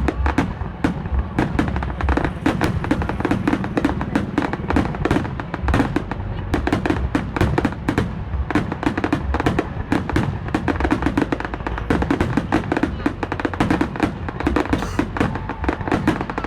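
A dense fireworks barrage: rapid, irregular bangs, several a second, over a constant low rumble, with music underneath.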